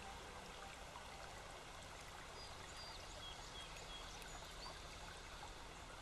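Snowmelt water running and trickling in a small creek between snow banks: a faint, steady babble.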